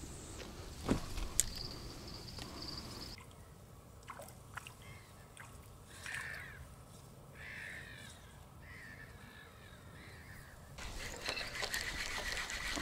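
Two sharp knocks about a second in, then a bird calling three times, a little over a second apart. Near the end a rushing noise comes up.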